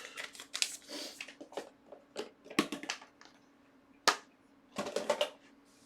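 A cardboard box of trading-card packs being opened and handled: a string of short crinkles, rustles and taps, with one sharp click about four seconds in.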